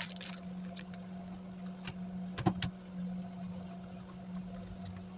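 Light clicks and taps of plastic laptop display parts being handled and fitted, with a sharper pair of clicks about two and a half seconds in, over a steady low hum.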